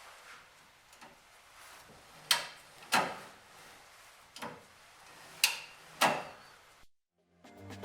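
A handful of separate sharp clicks and knocks, about six spread over several seconds, from parts and hand tools being handled during work on the van.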